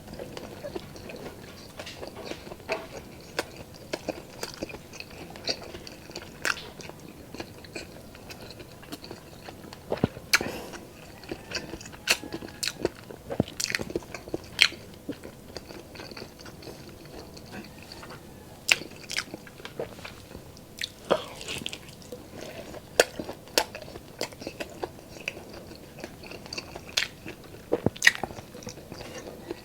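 Close-up sounds of a person eating pork adobo and rice: chewing and biting, with many sharp mouth clicks at irregular intervals.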